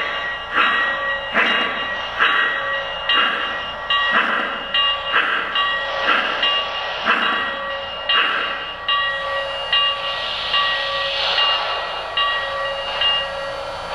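Lionel 2-truck Shay model locomotive's onboard Legacy sound system playing steam chuffs, a little more than one a second, over a steady tone. From about ten seconds in the chuffs fade under a rising hiss.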